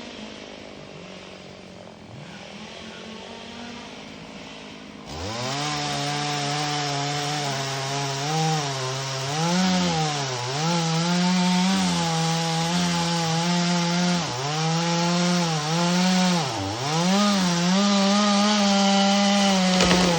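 Chainsaw running at low speed, then opened up to full speed about five seconds in and cutting wood, its pitch dipping briefly several times during the cut.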